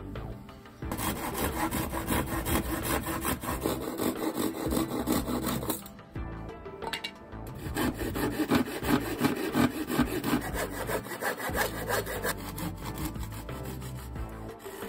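Hand saw cutting through a wooden board with quick back-and-forth strokes. The sawing stops for about a second and a half around six seconds in, then picks up again.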